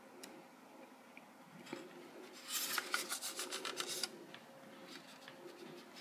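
Plastic housing of a BRK 1839N12R smoke alarm being handled and turned over by hand: a run of quick, scratchy rubbing strokes about two and a half seconds in, lasting about a second and a half.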